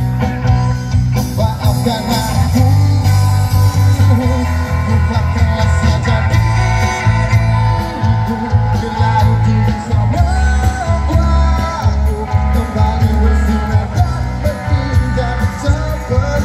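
Music with a singer and heavy bass, played through a line-array PA system with four boxes per side and heard from about 100 m away across an open field. The beat is steady and the bass is the loudest part.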